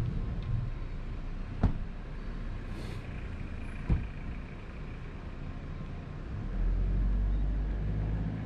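BMW R1250GS Adventure's boxer-twin engine running at low speed, with two sharp clicks about a second and a half and four seconds in. The engine sound grows louder about two-thirds of the way through.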